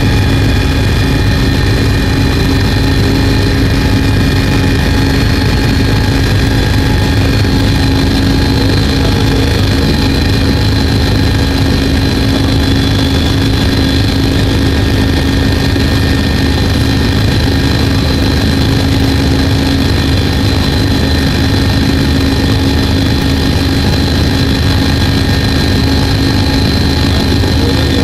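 Helicopter engine and rotor running steadily in flight, heard from inside the cabin: a loud, constant drone with a steady high whine on top.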